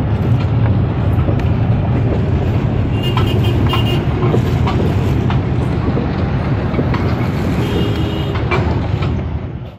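A fishing boat's engine running with a steady low rumble.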